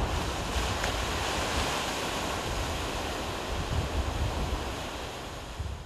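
Surf breaking on a beach with wind, a steady rushing noise with a low rumble underneath, fading out near the end.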